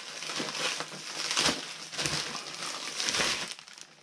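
Plastic packaging crinkling and rustling as a boxed kit is pulled out of a plastic mailing bag by hand, in irregular crackles that are loudest about a second and a half in.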